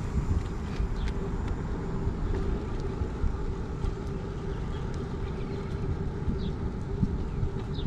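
Riding a road bicycle: wind rumbling on the microphone over a steady tyre hum on concrete pavement.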